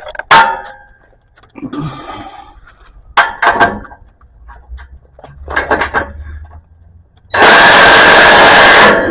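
A few light metal clanks, then about seven seconds in an impact wrench runs hard for about a second and a half, tightening an exhaust clamp nut.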